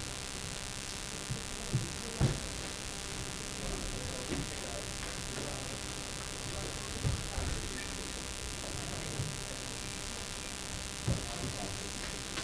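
Lecture-room tone: a steady hiss with a few short, low thumps, about two seconds in, again near seven seconds and near the end.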